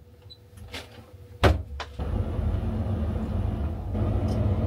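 Two sharp knocks about a second and a half in, then a front-loading Bosch washing machine starts its cycle with a steady low hum as the drum begins to turn.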